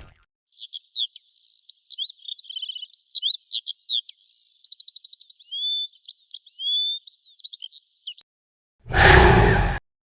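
A songbird singing a varied run of quick chirps, whistled notes and trills, with a thin, band-limited sound. Near the end comes a loud rushing burst of noise lasting about a second.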